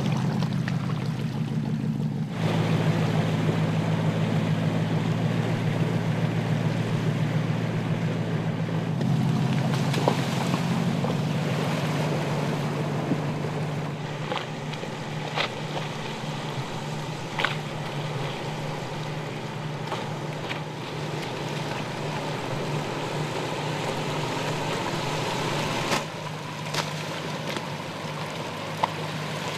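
Porsche Cayenne S's 3.6-litre twin-turbo V6 running at low revs as it crawls off-road over mud and stones, with tyre and water-splash noise and a few sharp knocks of stones. The sound changes abruptly a few times.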